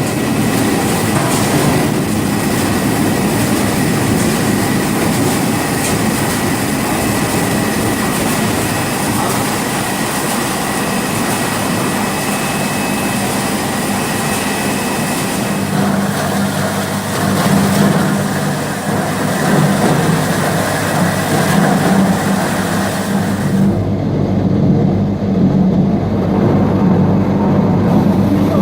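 Fruit-pressing plant machinery running: steady rattle and clatter with motor hum and a couple of faint steady whines. About 24 seconds in the rattle and hiss fall away, leaving a deeper hum.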